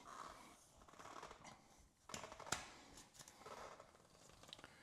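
Faint clicks and light scraping of a plastic door sweep being pushed onto the bottom edge of a frameless glass shower door, with one sharper click about two and a half seconds in.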